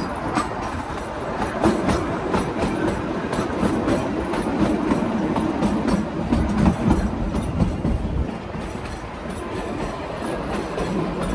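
Kalka–Shimla narrow-gauge toy train running, its wheels clattering on the rails over a steady rumble.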